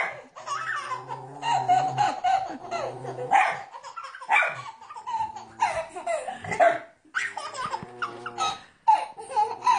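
A toddler laughing in repeated fits, with short breaks between them.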